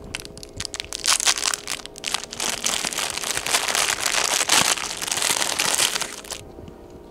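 Clear plastic wrapper of a fortune cookie crinkling and crackling as it is torn open and pulled off the cookie by hand; the crinkling stops about six seconds in.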